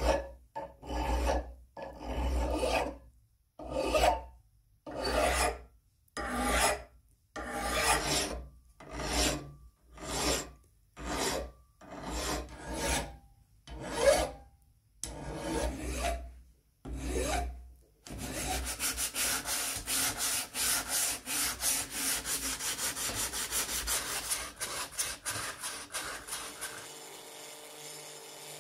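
Hand file rasping on a metal part of an antique crepe iron held in a vise: slow, even strokes about one a second, then quicker short strokes several a second from about two-thirds through, which fade near the end.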